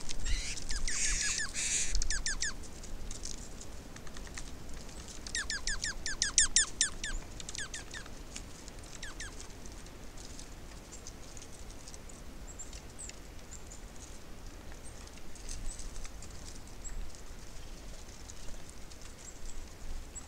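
Small songbirds at a feeder giving rapid series of short, high chirps: one burst in the first two seconds and another about five to seven seconds in, followed by scattered faint high ticks and chips.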